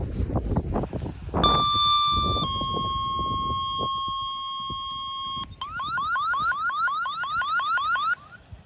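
Radio alert tones: a steady tone for about a second, then a slightly lower steady tone for about three seconds, then a rapid rising warble of about five sweeps a second, the two-tone page that precedes a dispatch test of an indoor warning system. Wind noise on the microphone comes before the tones.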